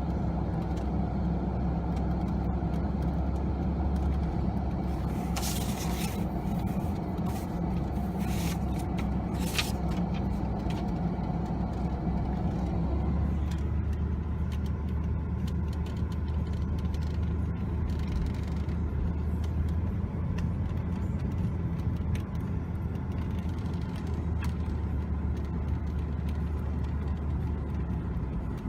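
Steady road and engine rumble inside a moving car's cabin, with a few brief clicks and rattles in the first ten seconds and the higher hiss easing off about halfway through.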